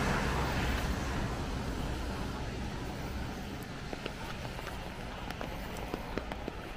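A passing road vehicle fades away. From about halfway through, a few light, irregular footstep clicks come through.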